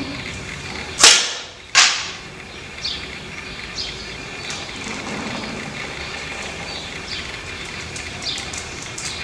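A shot from a Japanese longbow (yumi): the bowstring snaps on release with a sharp crack that rings away briefly, and about three-quarters of a second later the arrow strikes the target with a second sharp hit.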